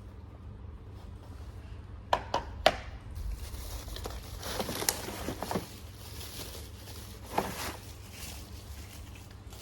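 Hands handling the pieces of a cordless mini chainsaw kit: three sharp knocks about two seconds in, then rustling with scattered light knocks, over a steady low hum.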